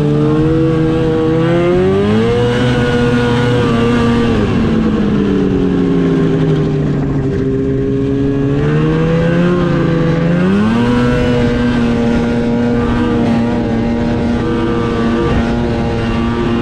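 Snowmobile engine running under way, heard from the rider's seat: it climbs in pitch about two seconds in, eases back after about four seconds, then climbs again about eleven seconds in and holds a steady high pitch.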